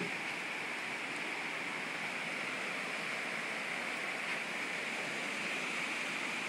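Steady rushing of a fast river running over rapids.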